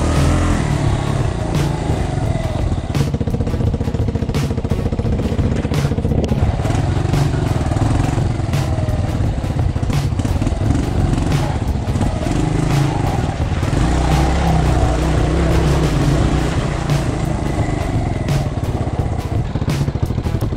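Trail motorcycle engine running at low speed and wavering in pitch as the bike is ridden over a rough, muddy dirt trail, with scattered knocks and rattles from the bike over the bumps.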